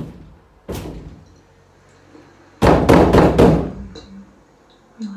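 Knocking on a door: one knock about a second in, then a quick run of about five hard knocks in the middle.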